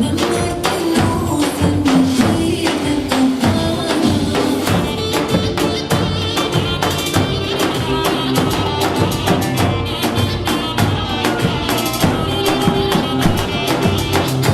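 Dance music with a fast, steady percussion beat under a melody.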